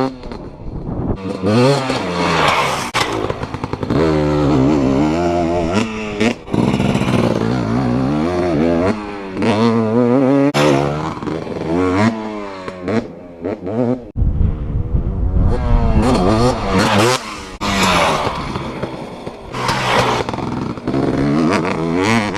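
KTM dirt bike engine revving hard and easing off again and again as it is ridden around a motocross track, its pitch climbing and falling with each run. A short burst of low rumble comes about two-thirds of the way through.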